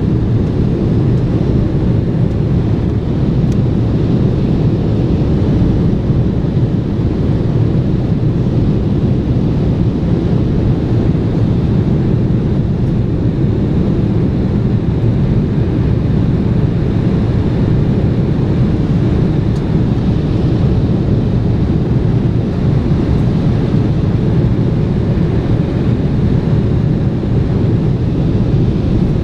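Airliner cabin noise on the landing approach: a steady, low drone of engines and rushing air heard from inside the cabin.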